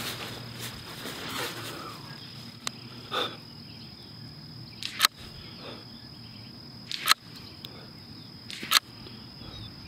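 Three shots from a CZ 457 Pro Varmint .22 LR bolt-action rifle, each a sharp crack, about two seconds apart, with fainter clicks between them.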